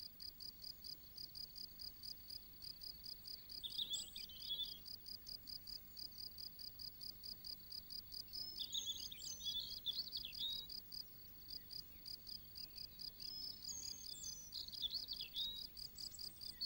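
A cricket chirping steadily in a high, even pulse of about four chirps a second, with short bursts of bird song about four seconds in, around nine to ten seconds, and again near fifteen seconds.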